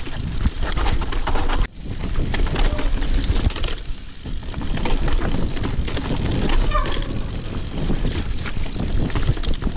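Mountain bike riding over a rough, rocky dirt trail: the bike rattling with many small knocks and jolts, over a heavy rumble of wind on the microphone.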